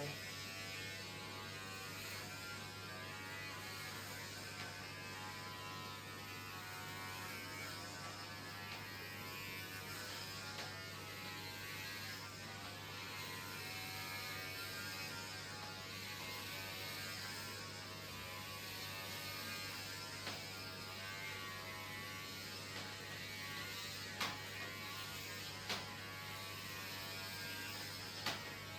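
Electric hair clippers running with a steady buzz as they cut off a boy's mohawk, with a few light clicks near the end.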